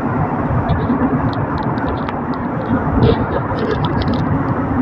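Steady road and traffic noise heard from inside a car's cabin while driving through a road tunnel: tyre and engine rumble with a low steady hum.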